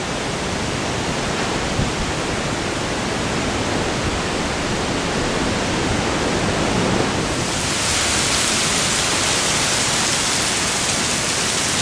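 Cyclone-force wind blowing, a dense, steady rushing noise. About seven seconds in it turns brighter and hissier as heavy driving rain lashes down with the wind.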